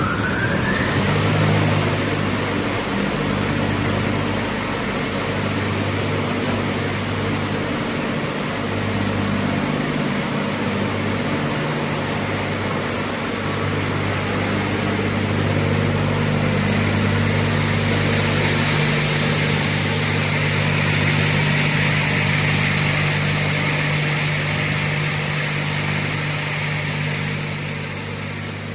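A Brodpol WP-160 shaft multi-rip saw (crawler-feed gang saw with 45 cm blades on one shaft) running with a steady mechanical hum and whir. A rising whine tops out about a second in, and a little past halfway a higher, hissing band joins the hum.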